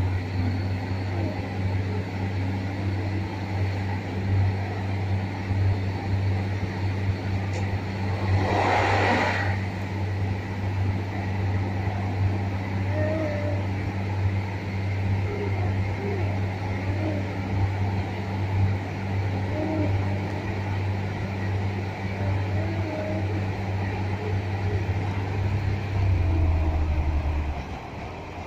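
Passenger train running, heard from inside the carriage: a steady low drone with rumble. A short rushing burst comes about nine seconds in, and the drone drops away near the end.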